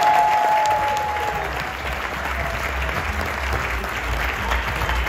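Audience applauding, a dense crowd clapping. A single held high tone sounds over the first second and a half.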